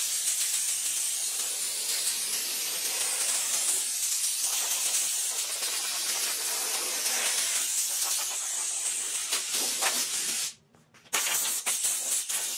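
Compressed air hissing from an air hose as it blows off a sheet-metal fender, drying off leftover moisture from cleaning before priming. The blast cuts out briefly about ten and a half seconds in, then starts again and stops near the end.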